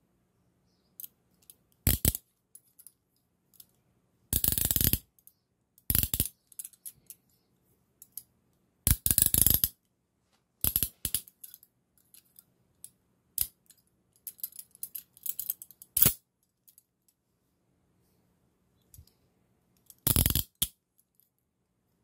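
CTS-Thompson 1010C chain-link handcuffs worked by hand, the steel bow ratcheting through the cheek plates. It comes as several short runs of rapid metallic clicking, each a second or less, with single clicks and clinks scattered between.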